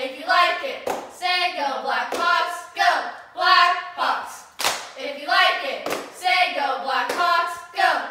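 Cheerleaders chanting a cheer in unison in short, loud shouted phrases, punctuated by sharp hand claps.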